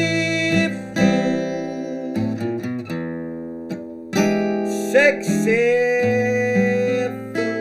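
Acoustic guitar strumming chords that ring on, with a man singing long drawn-out notes over it.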